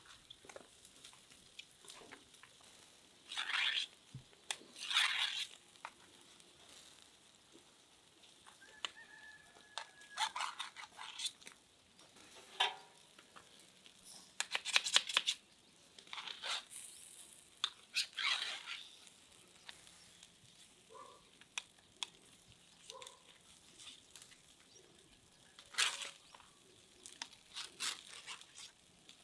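Grilled meat chunks being pushed off metal skewers with a knife: repeated short scraping bursts of metal on metal at irregular intervals, with the meat sliding down onto lavash.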